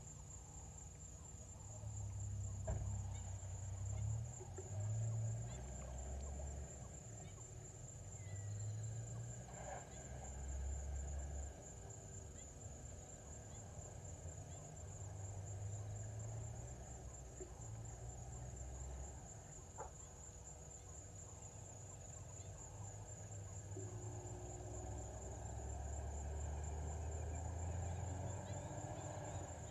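Outdoor evening ambience: a steady high-pitched insect trill throughout, under low rumbles that come and go every few seconds and are the loudest sound.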